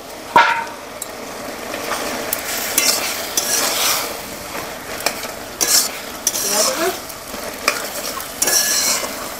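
Flat metal spatula stirring and scraping through amaranth greens, drumsticks and potato in a metal kadai, with the vegetables sizzling as the last of the cooking water boils off. A sharp clank of the spatula on the pan comes about half a second in, and the scraping comes in repeated surges.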